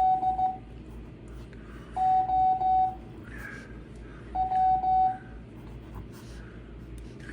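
Morse code practice tones from an ARRL 5 words-per-minute CW practice recording: a steady single-pitched beep keyed into short and long elements. It sends three letters, each about two seconds apart, with long gaps between them.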